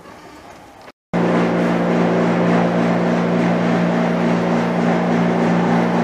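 A loud, steady mechanical hum with a low drone and a noisy hiss over it. It cuts in abruptly about a second in, after a moment of quiet room tone, and stays level without changing.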